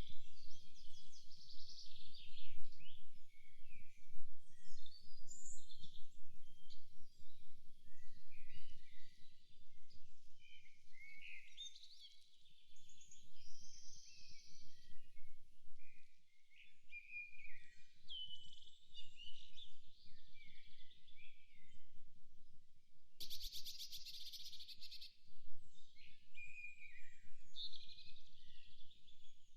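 Several songbirds chirping and singing at once, overlapping short calls and warbles, over a faint low rumble. About two-thirds of the way through, a rapid buzzing trill sounds for about two seconds.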